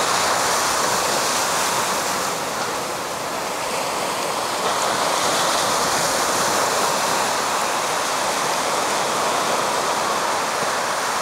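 Ocean surf: waves breaking and washing in a steady rush of water noise, swelling a little now and then.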